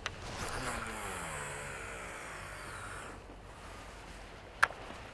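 A motor passing by, its pitch sliding down as it goes, fading out after about three seconds; then a single sharp click about four and a half seconds in.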